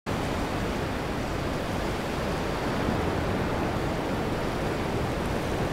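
Steady rushing of sea water: an even, unbroken hiss with no separate wave breaks.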